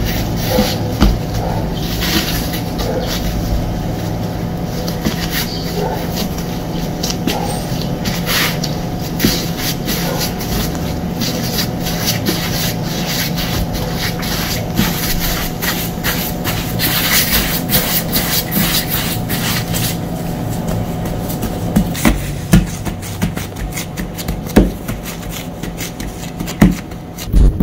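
Plastic-gloved hands kneading bread dough on a silicone baking mat: irregular rubbing and scraping as the dough is pushed and turned, with a few thuds in the last few seconds as it is pressed flat. A steady low hum runs underneath.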